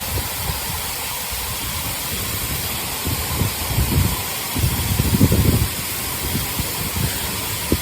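Waterfall rushing: a steady hiss of falling water, with irregular low bumps loudest about five seconds in.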